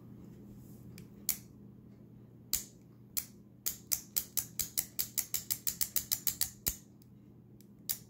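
Sharp metal clicks from a miniature keychain stiletto switchblade being worked: a few single clicks, then a rapid run of about fifteen clicks at some six a second, and one more click near the end.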